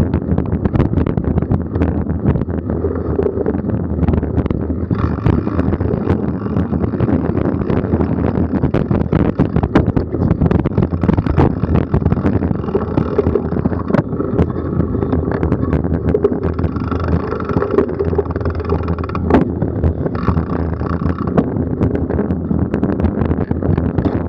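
Wind buffeting an action camera on a mountain bike ridden over a bumpy dirt trail, with constant rattling and sharp knocks from the bike and mount. A higher buzz comes in twice for a few seconds.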